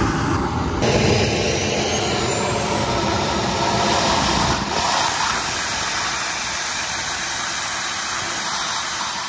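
Miniature jet turbine engine of a large radio-controlled jet starting up: a loud rushing noise with a thin high whine that climbs about a second in, climbs again about four and a half seconds in as the turbine spools up, then holds steady.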